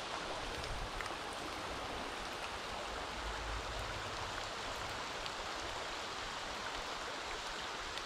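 Small mountain stream running over rocks in a shallow riffle: a steady rush of water.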